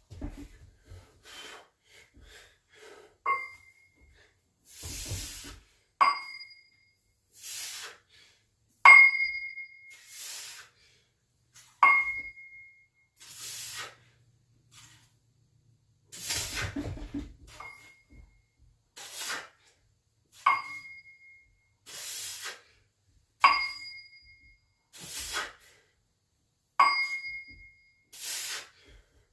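Metal dumbbells clinking with a short ringing ping, about every three seconds through a set of dumbbell shoulder raises, alternating with sharp, hissy exhaled breaths on each rep.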